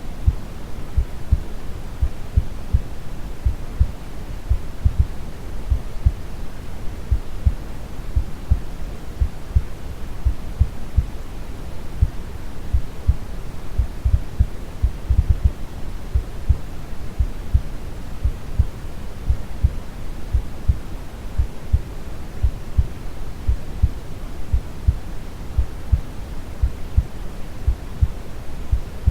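A slow, calm heartbeat of soft, regular low thumps, set over steady brown noise, a deep even hiss.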